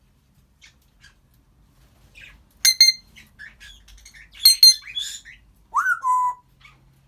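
Congo African grey parrot vocalising: soft clicks, then two loud, sharp high calls with chirps and clicks between them, and a short whistle near the end that rises, falls and holds steady.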